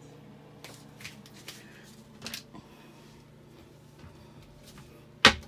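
A few soft handling rustles, then a single sharp knock near the end as the toilet lid is flipped up.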